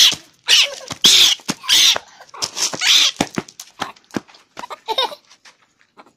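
Baby monkey giving a run of short, harsh, breathy calls, about five in the first three seconds and one more near the end, with a few faint clicks between.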